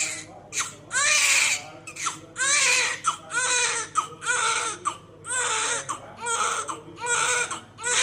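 Infant crying in a string of short wails, about one a second, each rising and falling in pitch, with quick breaths between.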